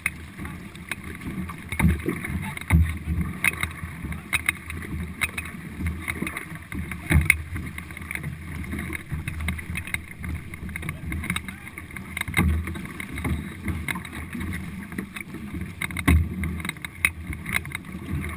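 Paddles of a four-person racing canoe digging and pulling through the water, a splash and thump about every second, over the steady wash of water along the hull.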